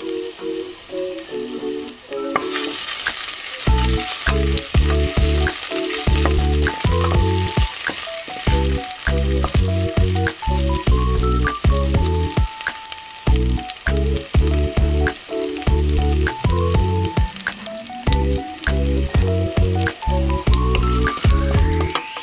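Minced garlic sizzling in hot oil in a stainless steel pot, starting to hiss loudly about two seconds in, with a wooden spoon stirring it near the end. Background music with a bass line plays over it.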